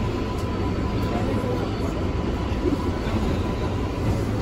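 Kawasaki R142A subway train standing at an underground platform, giving a steady low rumbling noise.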